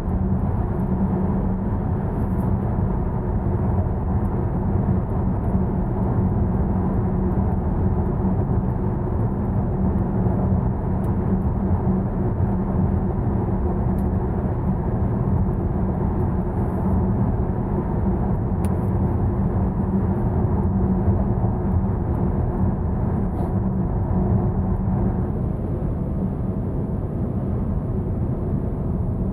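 Road and tyre noise inside the cabin of a Volvo V90 plug-in hybrid cruising on the highway on electric power alone, with no engine running: a steady low rumble with a steady hum under it.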